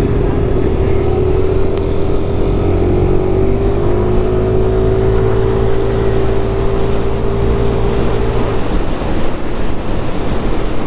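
Yamaha Lexi 155 scooter's single-cylinder engine pulling under throttle. Its whine climbs slowly in pitch for about eight and a half seconds, then drops away suddenly. Steady wind and road rush run underneath.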